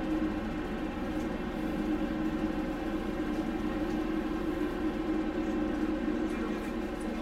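Steady drone of a frigate's onboard machinery heard from inside the ship: a constant hum of several held pitches that does not change.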